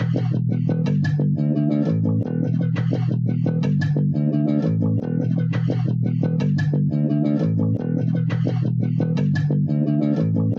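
Music with a plucked bass guitar line under guitar notes, in a steady rhythm with a short phrase that repeats every few seconds.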